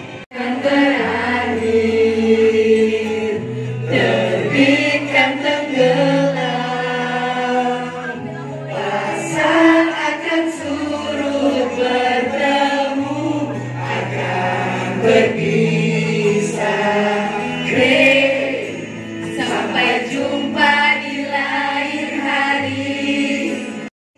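A song sung by a group of voices over held low accompaniment notes that change every two seconds or so.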